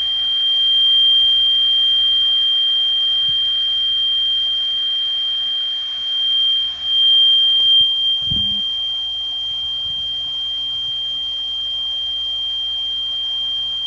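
A steady sine-wave test tone of about 3 kHz, played through a discrete LM741-style op-amp headphone amplifier under test, over a low mains hum. A brief low knock comes about eight seconds in.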